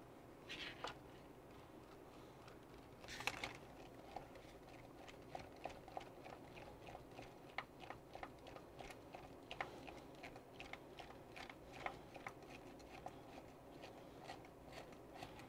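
Small screws being turned by hand with a screwdriver into a plastic RC-truck chassis: faint, irregular clicks and creaks, a little louder about three seconds in.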